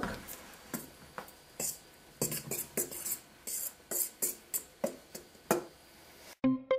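A fork stirring flour in a bowl, clicking and scraping against the bowl in irregular strokes. Near the end it cuts off and music with a run of plucked or keyboard notes begins.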